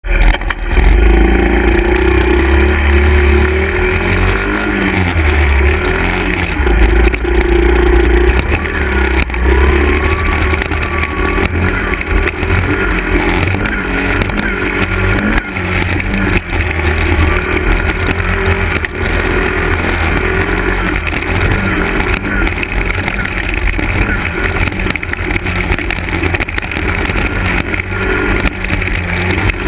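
Honda 50cc four-stroke single-cylinder dirt bike engines running, the nearest engine's pitch rising and falling with the throttle over a heavy low rumble.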